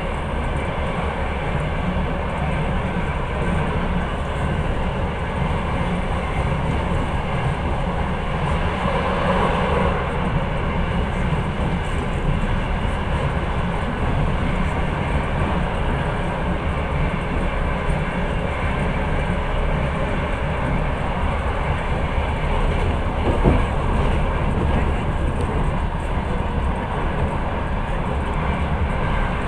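Passenger train running along the rails, a steady rumble of the carriage and wheels heard from inside the car, with one short knock about 23 seconds in.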